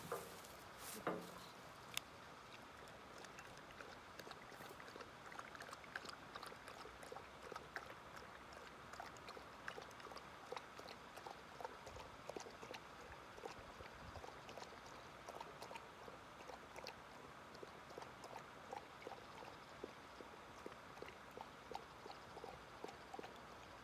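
English setter lapping a drink from a hand-held mug, heard as a steady run of small wet laps and clicks. A couple of louder knocks come about one and two seconds in.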